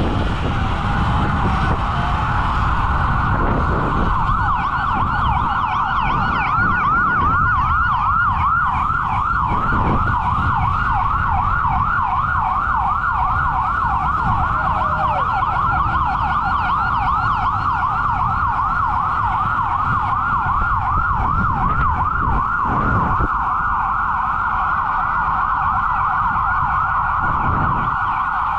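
Emergency vehicle siren sounding, with a fast yelping rise-and-fall of about four sweeps a second from about four seconds in. Under it is a steady low rush of wind and road noise.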